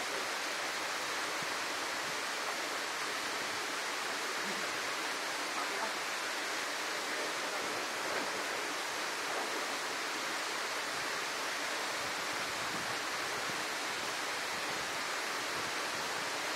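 Waterfall pouring into a rocky pool: a steady rush of falling water.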